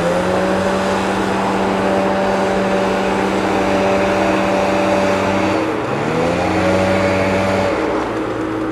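Street leaf vacuum machine running at speed, its motor's pitched hum over the loud rushing of suction as it sucks up dry leaves. About six seconds in the motor dips in speed and climbs straight back up.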